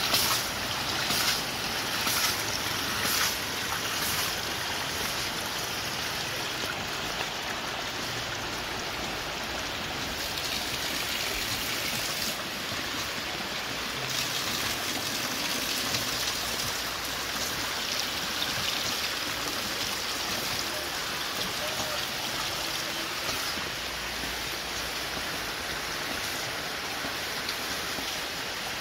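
Hydraulic ram pump of PVC and stainless steel, its waste valve clacking shut in a regular beat of about three knocks every two seconds as water gushes out of it. After about four seconds the knocking gives way to a steady rush of splashing water.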